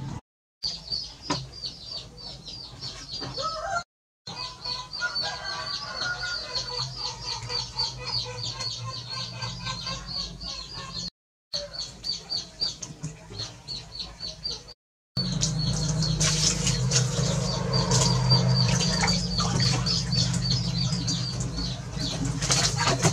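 A monkey splashing and moving about in a plastic tub of water, with fast, repeated high chirping in the background. From about two-thirds of the way in, the splashing gets louder over a low hum.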